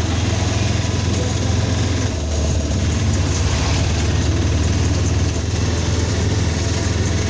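Auto-rickshaw's engine running steadily with a low throb, heard loud from inside the cab as it drives along the road.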